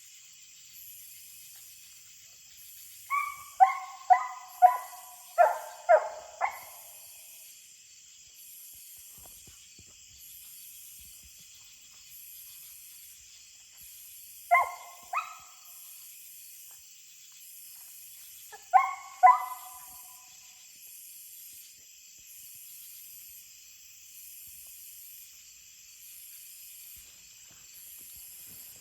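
Coonhound barking in short runs: about seven quick barks, then a pair, then two or three more. These are the first barks of the hound treeing a raccoon.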